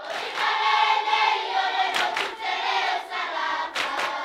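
A group of voices singing together in chorus, many pitches held and overlapping.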